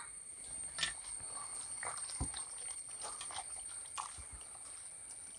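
Faint wet squishing and sloshing of a bare hand mixing raw pork pieces into a watery masala in a metal pan, with a few small scattered squelches.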